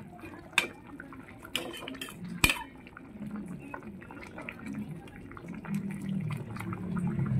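Metal ladle clinking against a stainless steel pot while scooping and pouring soup broth, with sharp clinks about half a second, one and a half and two and a half seconds in, and liquid sloshing.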